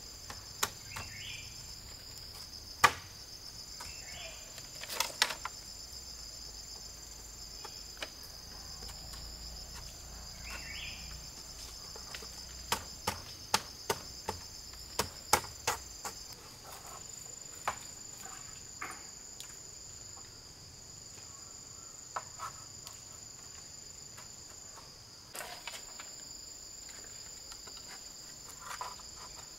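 A steady, high-pitched chorus of insects, with sharp knocks and taps scattered through it and a quick run of them, about three a second, near the middle.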